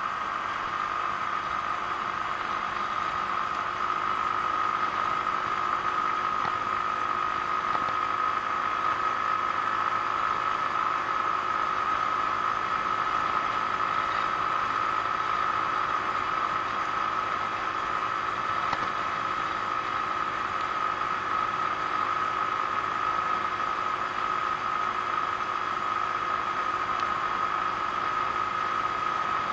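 Genuine Buddy 125 scooter's single-cylinder four-stroke engine running at a steady cruising speed: a constant whine over wind noise, a little louder from about four seconds in.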